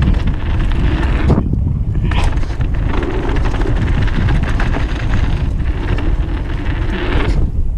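Wind buffeting the helmet camera's microphone and tyres rolling fast over a dirt trail on a downhill mountain bike, with a steady low rumble and scattered knocks and rattles as the bike goes over bumps.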